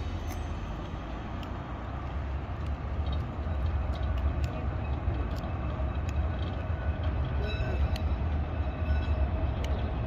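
Double-deck Blackpool balloon tram running slowly along street track after turning on the points, with a low rumble, scattered clicks of the wheels on the rails and a faint steady whine. Wind buffets the microphone.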